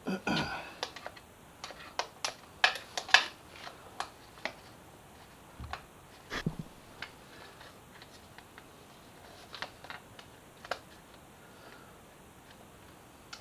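Irregular light clicks and taps of a hand tool and fingers working a bolt and the plastic trim on a motorcycle, with a quick cluster of the loudest clicks about two to three seconds in and scattered lighter ones after.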